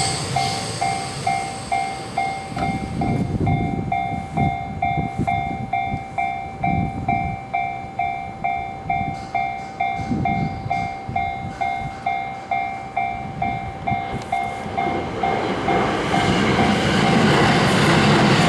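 Japanese railroad crossing warning bell ringing in a steady electronic ding, about two a second, over the low rumble of electric trains. Over the last few seconds a train's running noise rises and swamps the bell.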